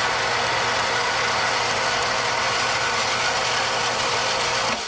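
Old, rusty well pump running steadily with a rattling mechanical hum while it builds pressure in the tank, then shutting off abruptly near the end as the pressure switch cuts it out.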